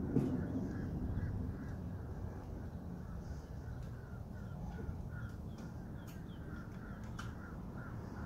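Mizuho Hana surgical table's powered drive running with a steady low hum as the tabletop tilts. A faint, evenly repeated chirp or squeak comes about twice a second over it.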